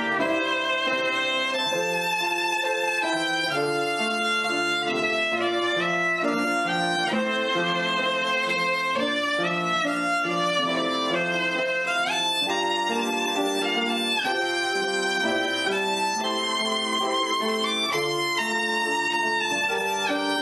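Instrumental background music: a melody of held notes stepping up and down over a lower accompaniment.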